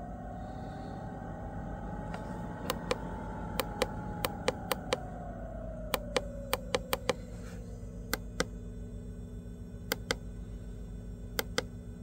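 Plastic buttons on a handheld heater remote clicking as they are pressed, about twenty clicks, mostly in quick pairs. Under them is the steady hum of a running Sunster TB10Pro diesel heater, with a tone that slowly drops in pitch through the middle as the heater's fan speed changes.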